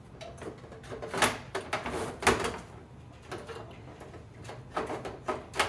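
Sharp knocks and clacks of a Compaq Presario desktop's metal and plastic case parts being handled, several separate knocks with the loudest about one and two seconds in.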